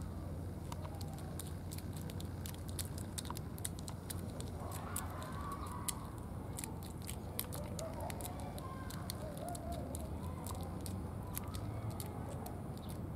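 A cat scratching its claws on the bark of a pine trunk: many quick, irregular crackly scratches over a steady low rumble.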